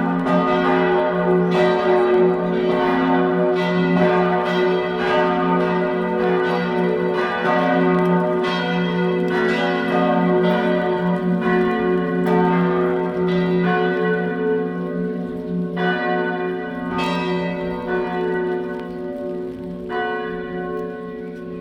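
Several church bells ringing together in a full peal, their strikes overlapping over a steady hum. Near the end the strikes come less often and the sound fades as the ringing dies down. It is the festive peal marking the start of a confirmation service.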